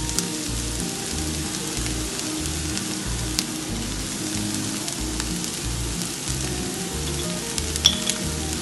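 Scrambled ostrich egg with onion and tomato sizzling steadily as it fries in a non-stick pan, with a few sharp ticks, the loudest near the end.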